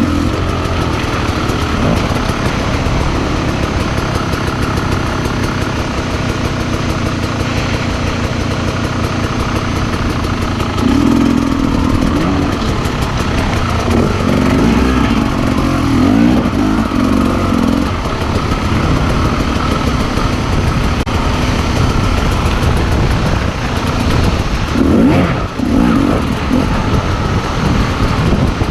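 Motorcycle engine running under way on a dirt trail, its revs rising and falling, louder and higher for stretches around the middle and again near the end.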